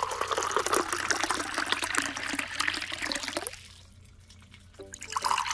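Pork neck bone broth poured into a pot of vegetables and meat, splashing steadily, then tapering off about three and a half seconds in.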